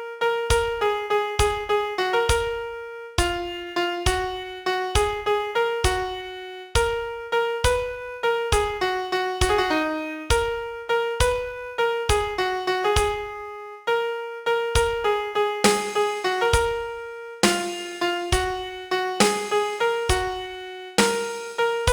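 Piano playing the melody of a Mandarin pop ballad one struck note at a time in a lilting 6/8 rhythm, with low bass notes under the tune; each note dies away after it is struck.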